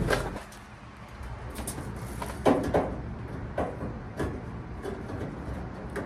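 Clinks, scrapes and a few short knocks of a dryer heating element's metal plate and coils being handled and fitted into the dryer's sheet-metal heater housing. The sharpest knocks come about two and a half to four seconds in.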